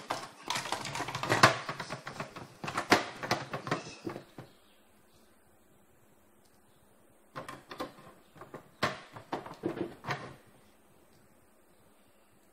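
Plastic cover of a Ricoh Aficio MP C2500 fuser unit being fitted onto its metal frame by hand: a rapid clatter of plastic and metal clicks and knocks. The clatter comes in two spells, with a quiet gap of about three seconds between them.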